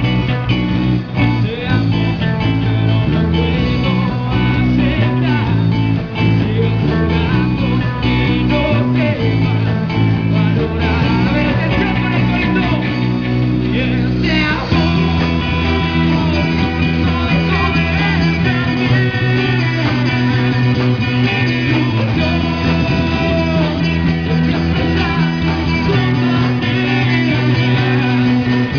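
Live rock band playing amplified electric guitars and bass with a male singer, loud and steady; the song moves into a new section about halfway through.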